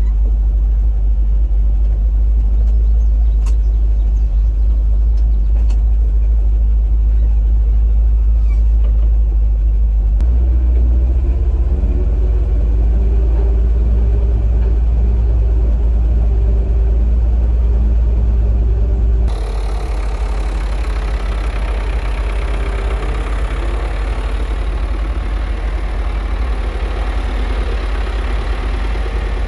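Truck engine running as it pulls away in first gear, a loud, steady deep rumble as heard from inside the cab. About 19 seconds in the sound changes abruptly to a thinner, brighter engine noise.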